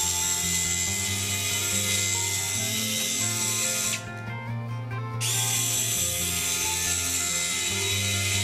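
WORKPRO 3.6 V cordless electric screwdriver running, a steady high-pitched motor and gear whine in two runs of about four seconds each, stopping for about a second in the middle. Background music plays throughout.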